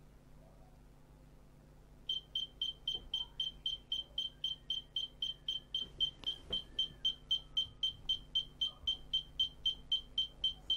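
Avery Berkel D104 post office scale's electronic beeper sounding a rapid, even string of high-pitched beeps, about four or five a second, starting about two seconds in. The scale powers up but will do nothing other than beep annoyingly, a sign that it is still faulty.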